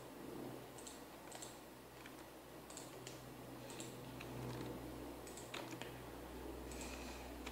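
Faint computer mouse and keyboard clicks, scattered about a second apart, over a low electrical hum that grows stronger about four seconds in.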